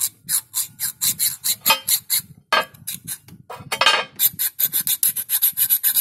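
A hand file rasping back and forth across the side of a titanium screw in quick strokes, about four or five a second, a little faster in the second half. The titanium is barely marked by it.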